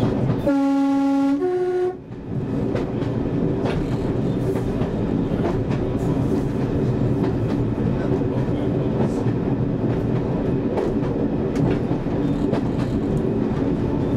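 Class 101 diesel multiple unit's two-tone horn sounded from the cab: a lower note held about a second, then a short higher note. The railcar then runs on steadily, with its diesel engine and wheels on the track, and light clicks now and then.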